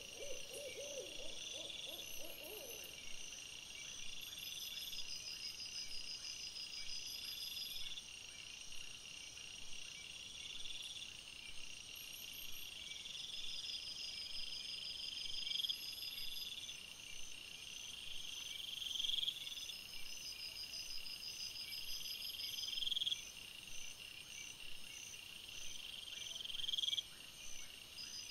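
An owl hooting with a wavering, quavering tone, ending about three seconds in. Under it and after it runs a steady high-pitched whine that swells into a rising tone every three to four seconds.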